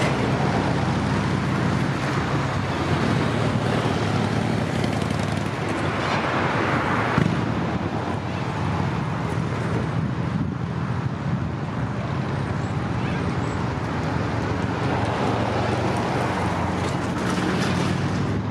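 Level crossing ambience: road traffic running steadily while a suburban train arrives, with the crossing's warning bells ringing.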